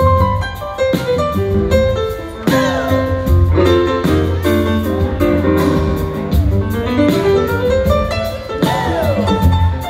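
Live rock band playing, with guitar prominent over bass and drums, heard from the audience.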